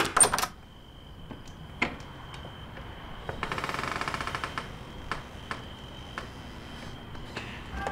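Keys and a door's deadbolt being worked to unlock a front door: a sharp clatter at the start, scattered metal clicks, and a rapid rattle of ticks about three and a half seconds in.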